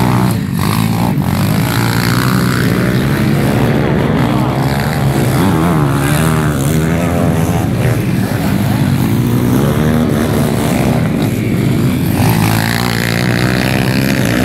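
Pit bike engines running and revving as several bikes ride round a dirt track. Their pitch rises and falls with the throttle.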